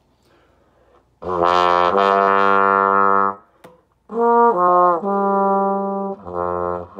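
Bass trombone played with a Windy City straight mute in the bell. About a second in there is a held note, then after a short pause two quick notes lead into another held note, with a shorter, lower note near the end.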